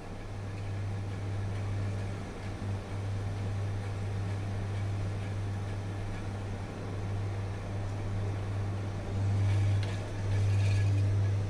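A steady low electrical hum that grows louder for the last couple of seconds.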